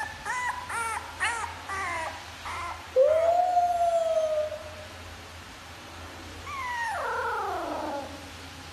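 Young puppy howling: a run of short, high yips at about three a second, then a long held howl about three seconds in, and a howl that slides down in pitch near the end.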